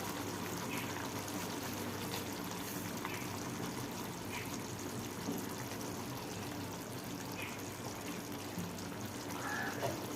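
Chicken masala cooking in an open pan, a steady bubbling and hissing of the simmering gravy.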